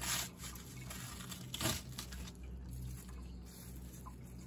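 Knife working a walleye fillet off its skin on a cutting board: wet slicing and tearing, with two short louder tears at the start and about a second and a half in.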